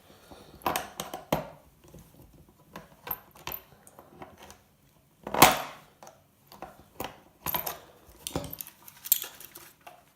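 Hard plastic housing of a gaming steering wheel being knocked and pried apart by hand: irregular clicks, clacks and rattles, with the loudest knock about five and a half seconds in.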